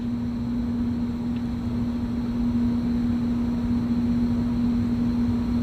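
Steady machine hum at one constant pitch over a low rumbling background.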